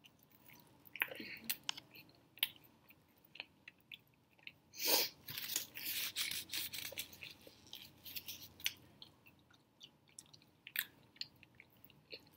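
Close-up chewing of a mouthful of raisin bagel with beef sausage and cream cheese: soft wet mouth clicks and smacks, with a brief louder noise about five seconds in followed by a busier run of clicks.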